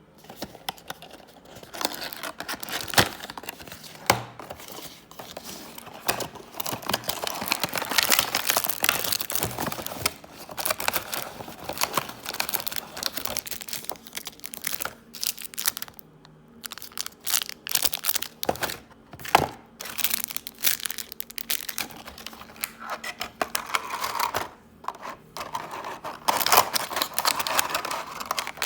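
Packaging being handled and unwrapped: irregular crinkling and rustling, with a few sharp clicks and knocks.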